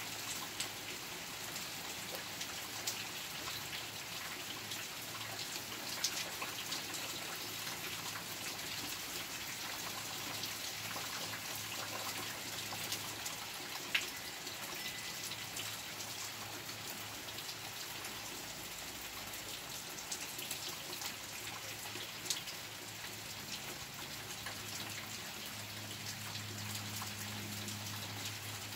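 Heavy rain falling steadily, an even hiss with scattered louder drips close by. A faint low hum comes in near the end.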